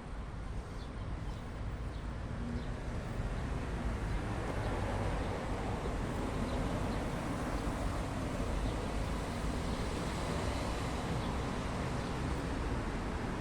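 Steady outdoor background noise that grows louder after about four seconds, with faint short high chirps scattered through it.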